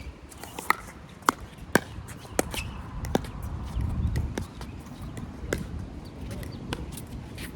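Wind buffeting the microphone with a low rumble that swells about halfway through. Over it come a series of sharp, irregularly spaced clicks and knocks, some with a brief ringing tone.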